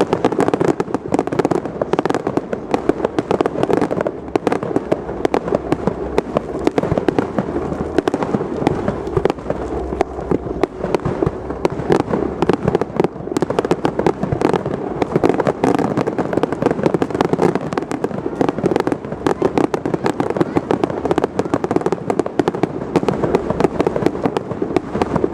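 Fireworks display in full barrage: a continuous, rapid run of bangs and crackling bursts with no letup.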